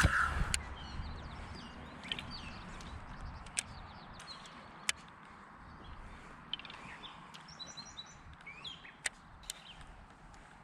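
Birds chirping and singing in quick short notes, with a few sharp clicks or taps scattered through.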